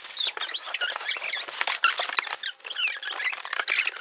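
Scissors cutting and scraping through packing tape on a cardboard box: a busy run of short squeaks, scrapes and clicks.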